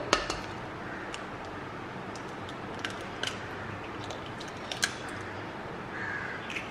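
Eggs being cracked into a glass bowl of batter: a few sharp clicks and taps of eggshell, the loudest at the very start and about five seconds in.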